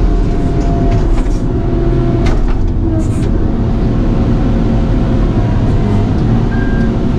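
Diesel engine of a timber-cutting logging machine running steadily under load. A few brief clicks and knocks come from the machine as it works.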